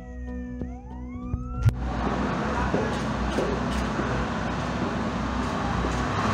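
Fire truck siren wailing, its pitch sliding down and then sweeping back up, cut off abruptly about a second and a half in. It is followed by a louder steady rushing noise with a few faint clicks.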